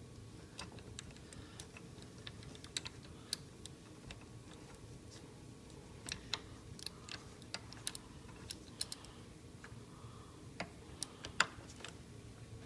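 Irregular light clicks and taps, with a sharper one near the end, from a tool and small metal and plastic parts being handled on a Land Rover air suspension compressor while the tool is fitted to tighten the piston.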